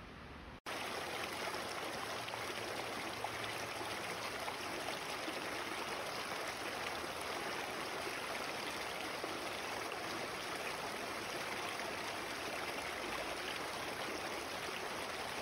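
Small woodland creek running over a low rocky step into a pool, a steady rush of flowing water that starts abruptly about half a second in.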